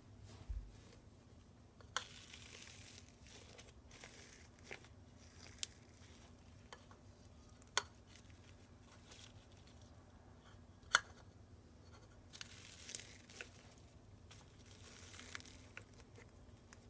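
Crunchy slime being worked by hand, with scattered sharp pops and clicks and stretches of soft crackling. A low thump about half a second in.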